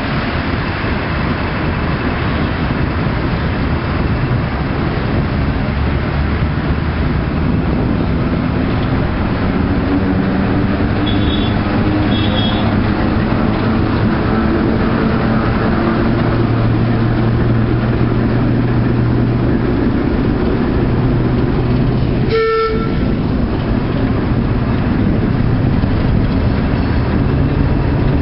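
Class 08 diesel shunter's six-cylinder engine running as it hauls coaches along the platform and past, its note drifting up and down, with a few brief high squeaks a little before halfway. One short horn toot sounds about 22 seconds in.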